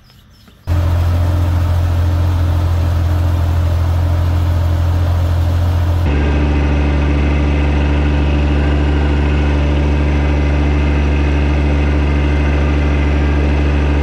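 John Deere 1026R subcompact tractor's three-cylinder diesel engine running steadily as the tractor drives along. The engine sound starts suddenly about a second in and shifts in tone about halfway through.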